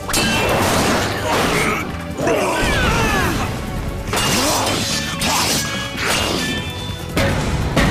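Action music with crash and impact sound effects of a fight, including metal claws striking and cutting into a glass cell wall.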